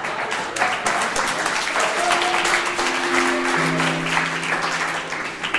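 Audience applauding, with instrumental music playing a few long held low notes underneath.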